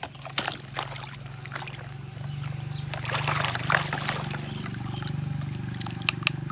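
Plastic toy vehicles being handled: irregular clicks and knocks over a steady low hum.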